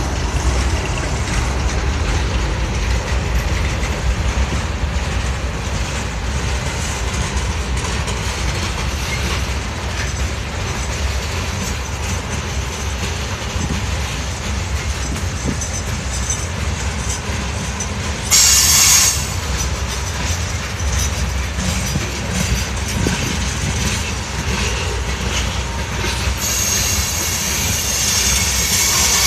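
Norfolk Southern freight train's boxcars and coal hoppers rolling past, a steady low rumble with the clickety-clack of wheels over the rail joints. A short high-pitched wheel screech about 18 seconds in, and again over the last three seconds.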